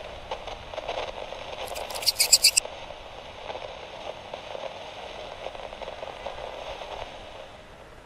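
Radio static: a thin, crackling, scratchy hiss, with a short burst of rapid sharp clicks about two seconds in, fading out near the end.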